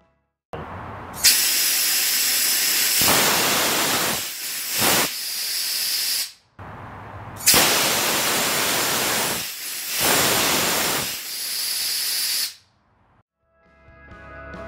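CO2 cold gas thruster firing twice, each burst about six seconds of loud gas hiss. Each opens with a softer rush, jumps up as the valve opens fully, dips and swells as the servo valve throttles the flow, and cuts off suddenly.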